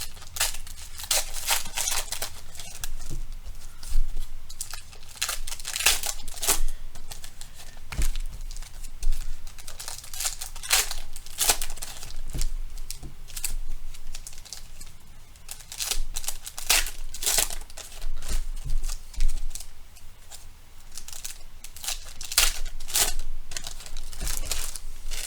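Foil trading-card pack wrappers crinkling and tearing as packs are opened by hand, with irregular crackles throughout.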